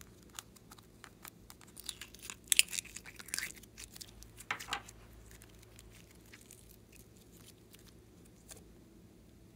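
Sticky gold clay being pulled out of a plastic trinket box and squeezed in the fingers: crackling, tearing sounds, loudest between about two and five seconds in, with light clicks of the plastic before and after.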